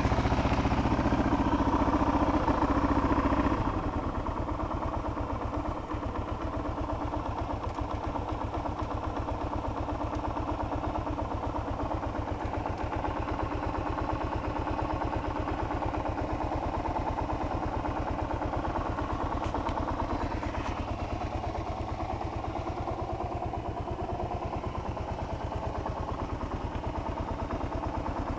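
1999 Kawasaki KLR650's single-cylinder four-stroke engine idling as it warms up after a cold start on choke. It is louder for the first few seconds, then drops to a quieter, steady idle about four seconds in.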